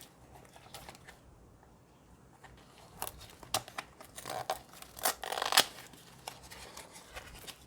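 Packaging of a trading card box being torn and crinkled open by hand: quiet for the first few seconds, then a run of rustles and tearing sounds, the loudest about five and a half seconds in.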